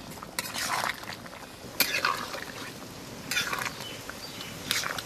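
Long metal spatula stirring thick simmering curry in a steel kadai: four short bursts of wet splashing and scraping against the pan over a steady background hiss.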